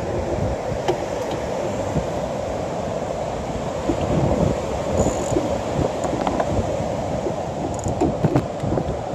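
Wind buffeting the microphone in a steady low rumble, over the wash of breaking surf.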